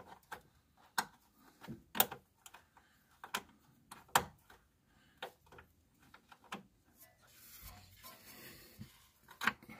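Scattered sharp clicks and light metallic knocks as a brake hose's metal end fitting is handled and worked into a homemade metal bracket, with a short scraping rustle near the end.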